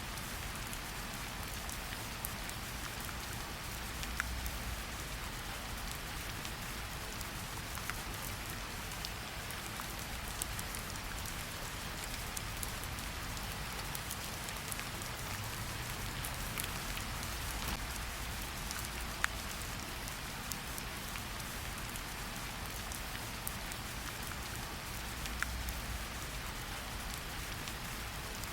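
Steady rain falling in a forest, a continuous hiss with scattered individual drops ticking, and a low rumble underneath that swells slightly now and then.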